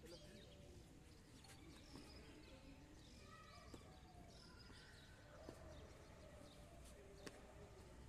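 Near silence: faint outdoor background with a low rumble and a few faint ticks.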